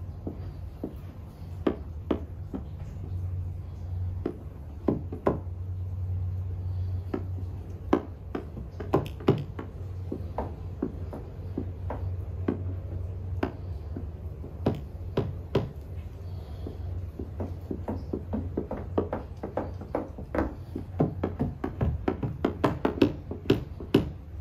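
Plastic squeegee and fingers working wet paint protection film onto a headlight lens: many short, sharp ticks and taps at irregular spacing, more closely bunched near the end, over a steady low hum.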